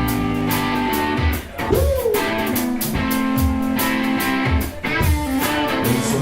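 A live rock band playing an instrumental passage: electric guitar chords over bass and steady drum hits.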